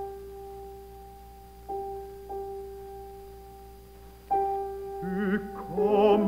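Piano accompaniment playing the same note in octaves, struck three times and left to die away between strikes. Near the end a baritone voice comes in singing with vibrato.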